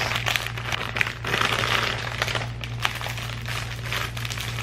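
Plastic packaging crinkling and rustling as it is handled, with scattered clicks, over a steady low hum.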